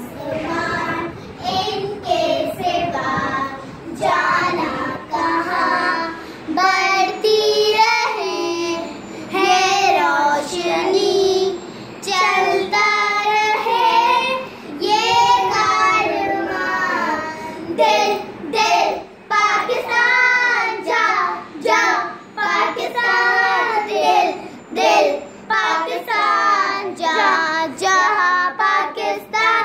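A young girl singing a song, her voice close to the microphone, in phrases broken by short breaths.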